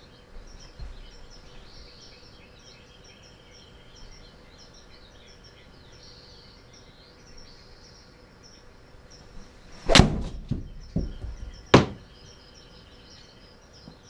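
A golf club strikes a ball about ten seconds in, a sharp smack as the ball slams into the simulator's impact screen, then two lighter thuds and a second sharp knock as the ball drops and rebounds.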